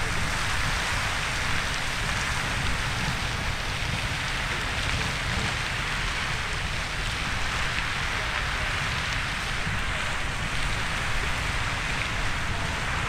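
Riverside Geyser erupting: a steady rushing hiss of the water jet and of the spray pouring down onto the Firehole River, much like heavy rain, with a low rumble underneath.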